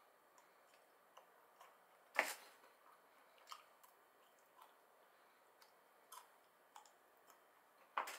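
Soft, irregular clicks and smacks of edamame being squeezed out of the pod into the mouth and chewed, with a sharper click about two seconds in and another near the end.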